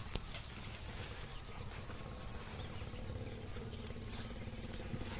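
Quiet outdoor field ambience: a low, even background rumble with a single faint click just after the start.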